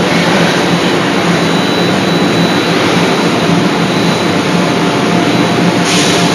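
Steady, loud running noise of a hydraulic die-forging hammer's machinery, with a low hum and a thin high whine, and no blows struck.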